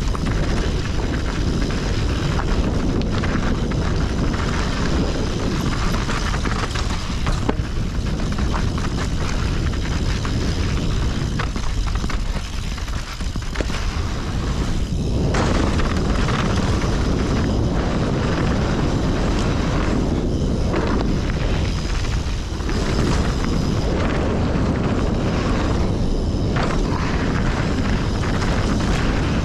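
A mountain bike riding down a rough, rocky trail: a steady loud rumble of wind on the mic and tyres, with rattling and clatter from the bike. It eases off for a few seconds about twelve seconds in, then picks up again.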